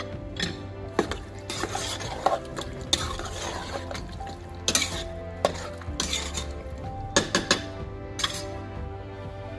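A metal spoon stirring chicken curry with freshly added coconut milk in an aluminium pot, with irregular scrapes and clinks against the pot's sides and bottom.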